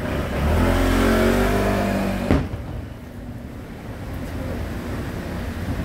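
A car engine accelerating for about two seconds, rising in pitch, then a sharp crack. After that a quieter low rumble of engines in slow traffic.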